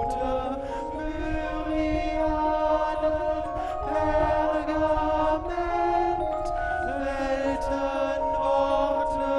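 A choir of many voices chanting, holding overlapping sustained notes that shift pitch in steps, with short sharp strikes scattered over them.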